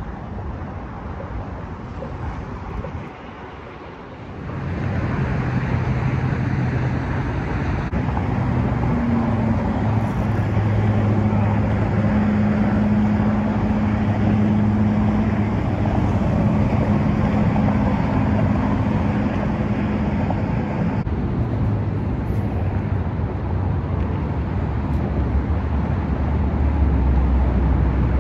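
Steady rumble of road traffic crossing a bridge overhead, an even noise with a low hum running through it. It grows louder about four seconds in.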